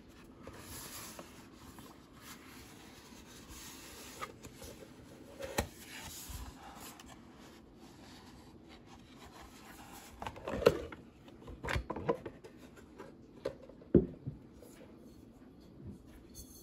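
Cardboard whisky carton being opened and the glass bottle slid out: soft rubbing and scraping of card, with a few light knocks in the second half.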